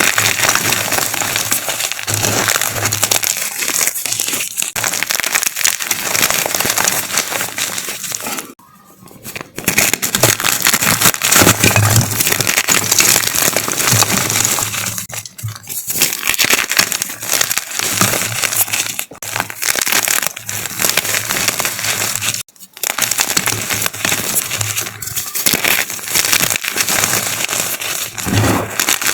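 Giant chalk being crushed and crumbled: a dense, crunchy crackling that goes on with a few brief pauses.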